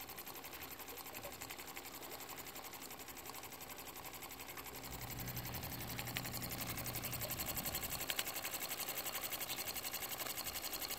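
Schoenner 160/1 toy steam engine, a small single-cylinder live-steam engine on a vertical boiler, running steadily with a quiet, quick, even ticking. It grows louder about halfway through.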